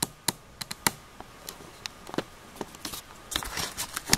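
Handling noise from the camera being picked up and repositioned: scattered sharp clicks and taps with light rustling, thickening into a dense patch of rustle and clicks near the end.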